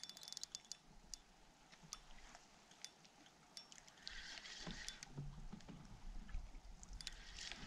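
Quiet: faint scattered clicks of a spinning reel being cranked against a fighting fish from a kayak, with a soft hiss coming in about four seconds in.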